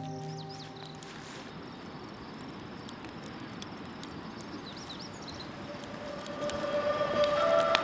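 Quiet outdoor ambience: a steady, even hiss with a few faint high chirps, between music fading out at the start and soft music with sustained tones fading back in over the last two seconds.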